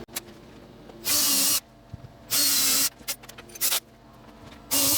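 Cordless drill run in four short trigger bursts of about half a second each, with a steady motor whine, drilling holes in a wall for toggle bolts and wood screws. Small handling clicks fall between the bursts.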